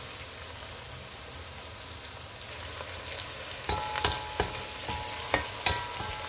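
Chopped onions and garlic sizzling in oil in a pot. From about four seconds in, a wooden spoon stirs them, knocking against the pot several times with short ringing clinks.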